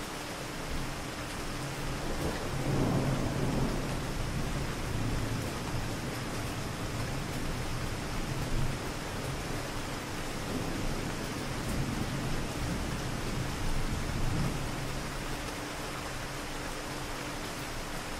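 Steady rain falling in a city street, a continuous even hiss. Distant thunder rumbles low beneath it, swelling most about three seconds in and more faintly twice later.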